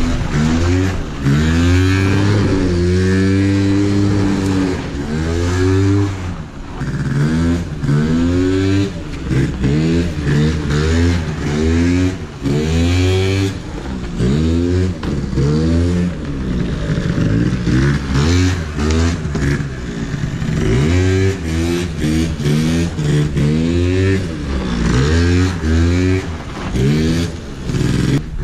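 A 50cc scooter engine revved hard and let drop over and over, its pitch rising and falling about once a second, as the scooter is ridden in wheelies.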